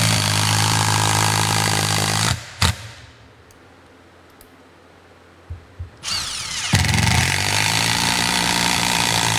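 Milwaukee M18 Fuel 2753 brushless 1/4-inch hex impact driver hammering steadily as it drives a screw into a wooden block, stopping about two and a half seconds in. After a pause with a few light clicks, the motor spins up with a short rising whine and the hammering starts again about seven seconds in as it drives another screw.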